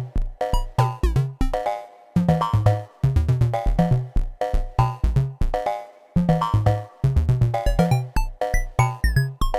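Slim MPS eurorack analogue percussion synthesizers, a version of Thomas Henry's Mega Percussive Synth, playing a fast repeating sequenced pattern. Deep decaying drum hits run under short pitched, ringing tones, and in the second half some hits sweep quickly in pitch.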